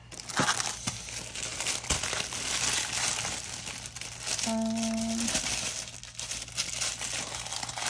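Crinkle-cut paper filler and packaging rustling and crinkling as a wrapped item is lifted out of a cardboard box, with a brief steady tone about halfway through.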